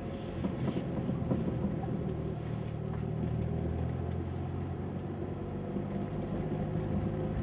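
Mitsubishi Lancer Evolution's turbocharged four-cylinder engine running steadily, with a few irregular knocks in the first couple of seconds that fit the car's intermittent clunking ('gotogoto') abnormal noise.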